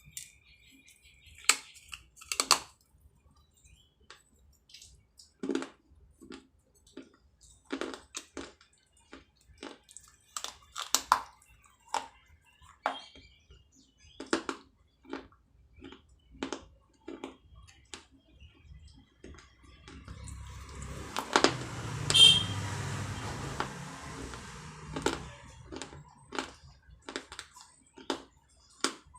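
Pieces of baked clay pottery bitten and crunched between the teeth: sharp, irregular cracks, roughly one a second. About two-thirds of the way through there is a few seconds of continuous crunching noise that holds the loudest crack.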